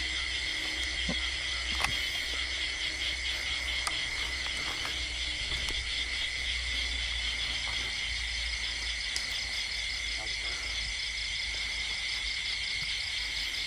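Steady chorus of crickets and other insects: a continuous high-pitched chirring with a fast, even pulsing. A faint low hum sits underneath, and there is a faint click about two seconds in.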